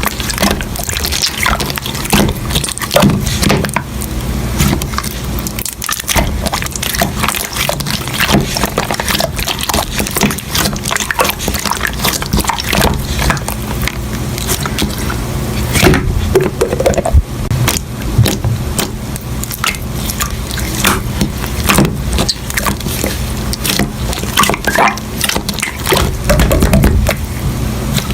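Hands squishing and pressing slime, with many quick popping clicks and wet squelches.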